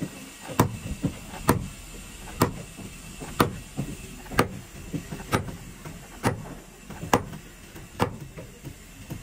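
Heavy hammer blows on timber: a hammer striking a wooden board braced against a wooden boat hull, about one sharp knock a second, with a few lighter taps between.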